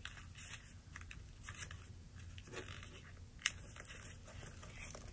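Faint rustling and crackling of a sheet of paper being pressed and creased by hand as a paper airplane's intake is sink-folded, with one sharper crackle about two-thirds of the way through.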